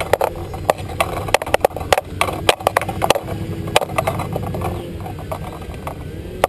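Radio-controlled model airplane engine revving up and down as the plane hovers and manoeuvres low. Many sharp, irregular clicks sound over it.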